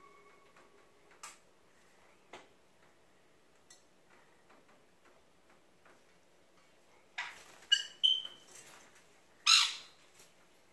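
Pet conures giving a few short, harsh squawks and chirps, the loudest about nine and a half seconds in, after several seconds of faint clicks and taps.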